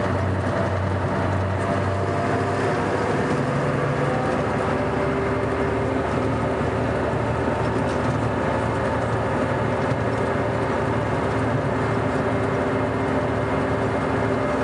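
Scania K420 coach's diesel engine running steadily under way, a constant drone whose low pitch shifts slightly about two to three seconds in.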